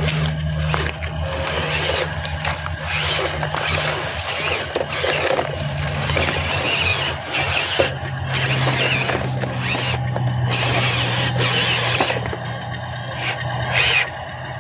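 Small electric motor and gearbox of a remote-control dump truck running under load as it tows another truck, with a steady low hum and surging rough grinding from the tyres crunching over gravel and stones.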